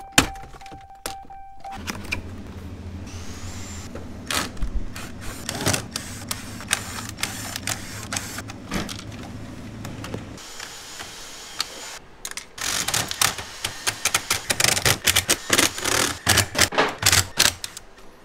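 Plastic dashboard trim and radio bezel parts being unclipped and handled: many sharp clicks and clatters, thickest in the last few seconds. A steady low hum runs under them until about halfway.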